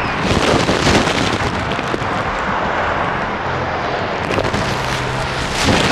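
Busy street traffic noise: a steady loud rush with a low engine hum from vehicles running close by.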